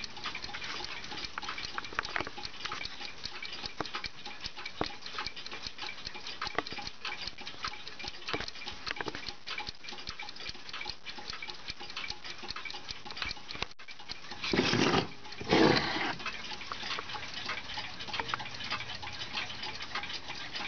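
Small spring-wound mantel clock ticking steadily, the fast beat of its balance-wheel movement. Two short, louder noises interrupt about fifteen seconds in.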